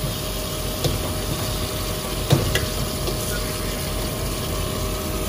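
Tap water running and splashing into a stainless steel bowl in a sink while hands work apart a block of frozen, spice-marinated chicken being rinsed. A couple of sharp clinks about one and two seconds in.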